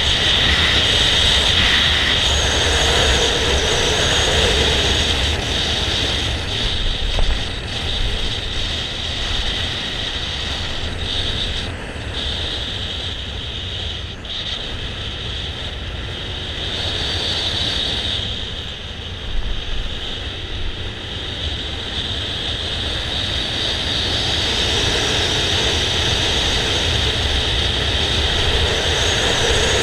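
Motor scooter riding along a road: its engine running under a steady rumble of wind and road noise on the mounted camera. It is louder near the start and end and eases off through the middle as the ride slows.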